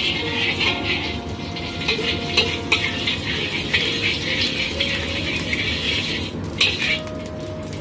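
Metal spoon scraping and swirling around the bottom of a wok in heating oil, a continuous rough scraping that stops briefly near the end.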